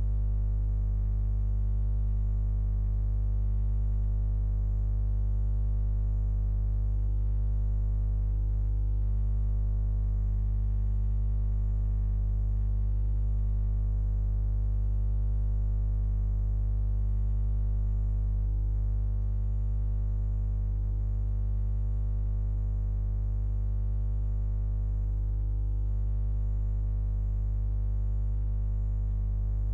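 A steady low buzzing hum with many overtones, unchanging in pitch and loudness.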